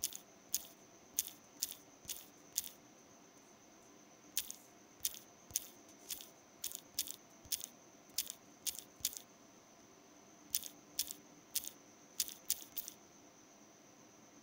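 Key taps on an Android phone's on-screen keyboard while an email address is typed: short, sharp clicks about two a second, in three runs with pauses between, over a faint steady high whine.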